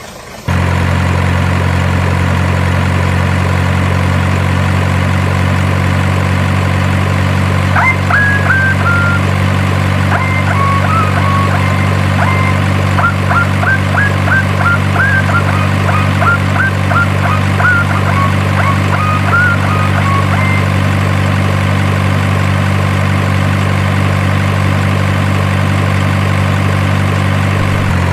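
Steady, unchanging engine idle hum that starts abruptly just after the start. From about 8 to 20 seconds in, a run of short high chirps sounds over it.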